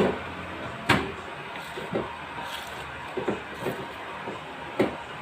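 A series of sharp knocks and clunks, about six in five seconds and irregularly spaced, over a steady background noise.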